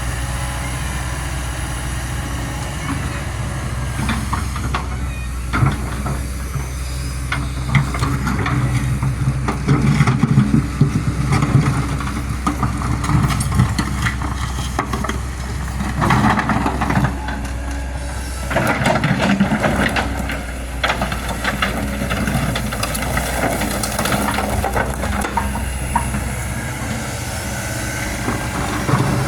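Kobelco SK200 hydraulic excavator's diesel engine running steadily while it digs and loads soil. The machine swells into louder working noise several times as it works.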